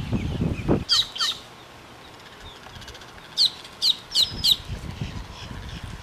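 A bird's high, sharp down-slurred calls: two about a second in, then four in quick succession past the middle, over a low rumble of wind on the microphone in the first second.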